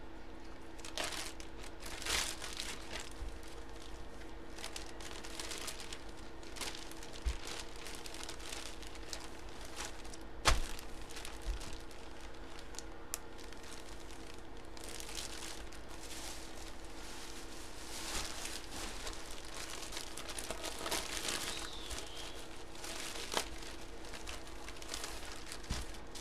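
Clear plastic bags crinkling and rustling in bursts as folded jerseys are handled, slid into and pulled out of their bags. A single sharp click about ten seconds in is the loudest sound.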